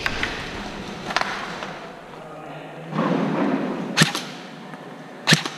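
Two sharp airsoft gun shots about a second and a half apart, with a fainter snap about a second in.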